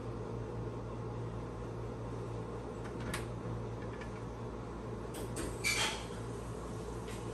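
A steady low hum, with a few light knocks and a short rattle from the cat's paws on the plastic casing of a through-wall air conditioner. The loudest knocks come about five to six seconds in.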